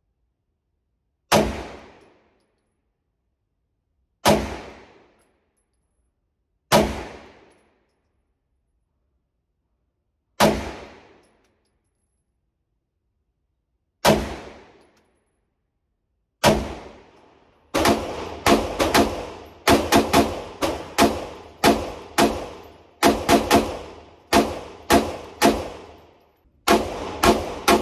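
Semi-automatic pistol shots in an indoor range, each with a short echoing tail: six slow single shots a few seconds apart, then from about 18 seconds in rapid strings of several shots a second.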